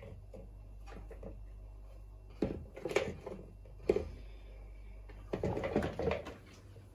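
Sliced carrots and onion pushed off a wooden cutting board into a pot: a few separate soft knocks as pieces and the board edge land, then a quicker run of knocks and scraping about five seconds in.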